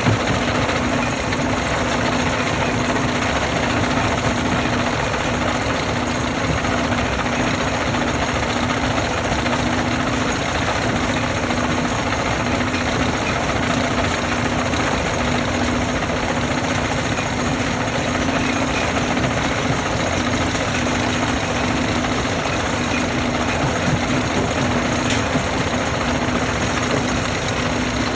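Stone crushing machinery running steadily: a dense, even mechanical din with a constant low hum, unchanging throughout.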